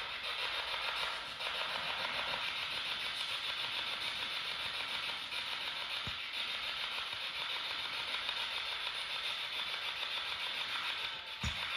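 Steady hiss of static during a silent wait, with two faint low thumps, one about six seconds in and one near the end.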